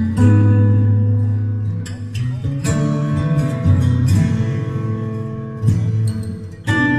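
Background music: acoustic guitar strummed chords.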